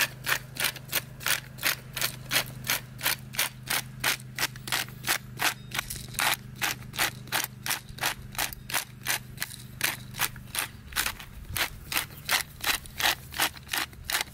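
Hand pepper grinder being twisted over meat, clicking evenly at about three clicks a second as it grinds black pepper.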